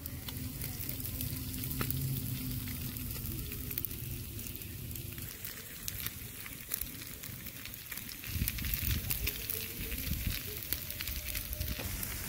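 Whole fish grilling over charcoal embers, sizzling steadily with many fine crackles. A low rumble joins in about two thirds of the way through.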